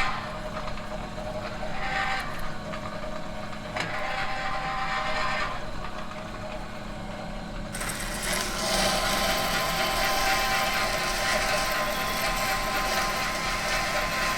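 Metal workshop machine humming steadily with a shifting mechanical whirr. A louder rushing noise joins in about eight seconds in.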